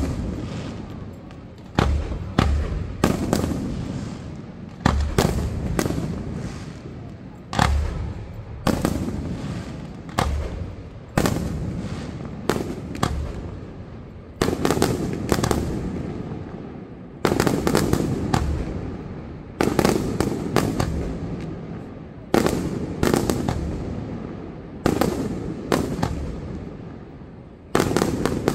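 Aerial firework shells bursting in quick succession, a sharp bang every one to two seconds and sometimes two close together, each followed by a low rolling echo that dies away.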